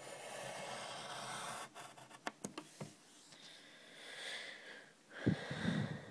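A drawing tool scratching on paper as a long line is drawn down the sheet: a steady scratch for about a second and a half, then a few light taps and softer strokes, with a louder handling noise near the end.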